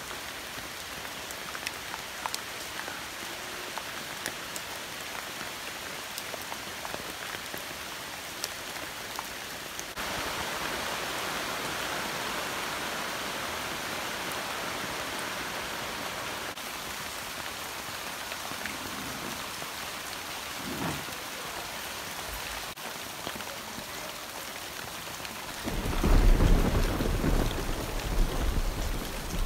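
Steady rainy-season rain falling on leaves and undergrowth, with scattered drop ticks, a little heavier from about ten seconds in. Near the end a loud low rumble of thunder comes in over the rain.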